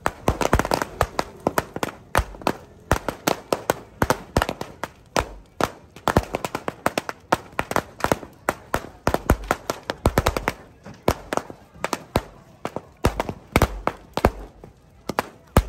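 A long string of firecrackers going off: sharp, irregular bangs, several a second, without a break.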